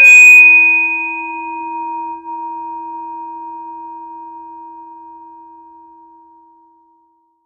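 A loud bell-like metallic tone struck once, ringing with several overtones. The higher overtones die away within a few seconds, while a low tone and a middle tone linger and fade out about seven seconds in.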